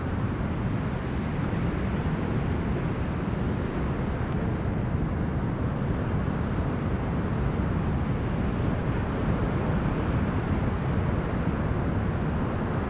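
Heavy storm wind buffeting the microphone over the sound of sea surf: a loud, steady, deep noise with no letup.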